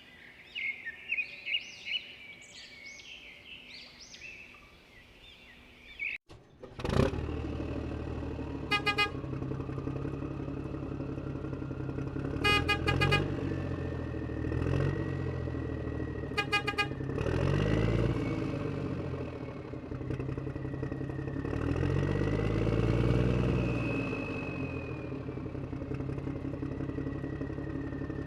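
Birds chirp for about six seconds, then radio-controlled construction model machinery starts up: an engine-like drone that rises and falls with a thin motor whine over it, and a few short bursts of rapid clicking.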